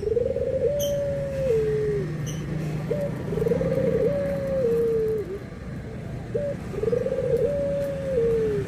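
Puter (Barbary dove) cooing: three phrases, each a short note followed by a long rolling coo that drops in pitch at its end. A couple of faint high chirps sound in the first few seconds.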